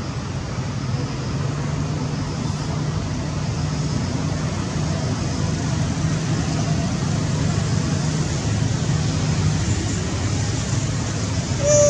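A steady outdoor hum like distant road traffic runs throughout. Over it come a few faint, short, high-pitched cries from a monkey around the middle, and one louder, short, high cry right at the end.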